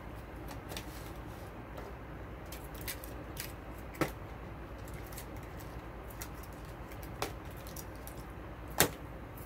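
Scattered small clicks and taps of plastic dipping-sauce cups and a paperboard nugget box being handled during a meal, two of them sharper, about four seconds in and near the end, over a steady low hum.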